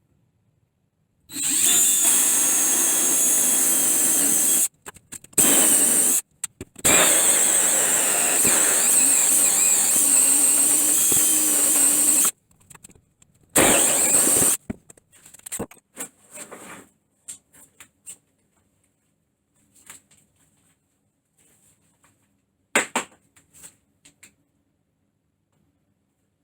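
Drill spinning a hole saw to cut the lockset hole in a door, running in a long steady cut with brief stops and restarts. After a short last burst it stops, leaving a few light knocks and handling clicks.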